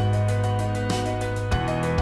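Gentle instrumental background music with a steady beat.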